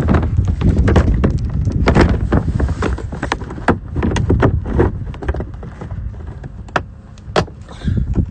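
Rubber latches and plastic body panels of a Polaris RZR side-by-side being handled: a quick string of clicks and knocks, thinning out past the middle, over a steady low wind rumble on the microphone.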